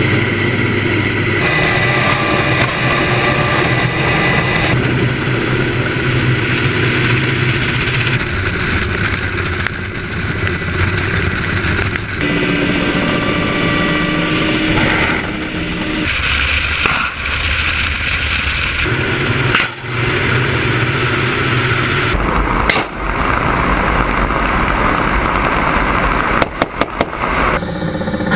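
Russian attack helicopters' turboshaft engines and rotors running, recorded close up from cameras mounted on the aircraft. The sound is a string of clips joined by abrupt cuts, so the tone changes every few seconds, with a few short dropouts near the end.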